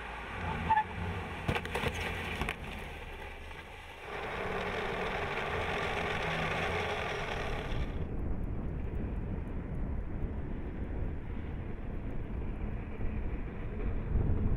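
A car driving on a test track, heard as steady tyre, road and wind noise with some engine rumble. There are a few sharp clicks in the first couple of seconds. The noise changes abruptly about four seconds in to a louder hiss, drops to a lower rumble about eight seconds in, and grows louder again near the end.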